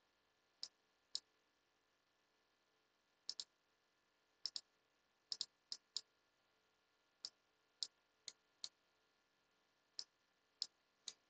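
Computer mouse clicking: about seventeen short, sharp clicks at irregular spacing, several coming in quick pairs like double-clicks, over a near-silent room.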